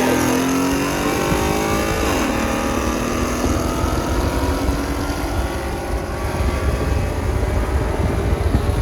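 V8 car engine at full throttle, accelerating hard: its pitch drops sharply twice at upshifts, about a third of a second in and again about two seconds in, and climbs steadily after each.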